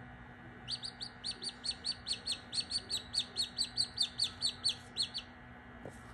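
Australorp chick peeping: a fast run of about twenty short, loud peeps, roughly five a second, each falling in pitch. The peeps start about a second in and stop shortly before the end.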